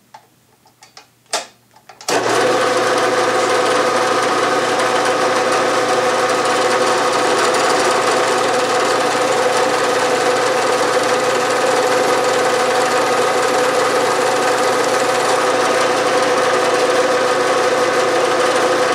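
A few light clicks, then about two seconds in the Bridgeport milling machine's spindle starts and runs steadily with a constant hum, turning a center drill that center-drills a hole in the metal bar.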